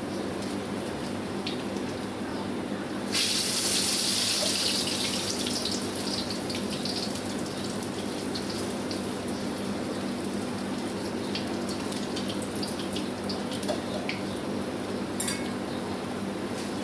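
A sudden loud hiss from the popcorn cart's hot kadai and burner, starting about three seconds in and dying away over a few seconds into scattered light crackles, over a steady low hum.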